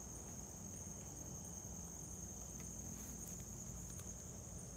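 Night insects trilling steadily in one high, unbroken tone, with a few faint clicks about three seconds in.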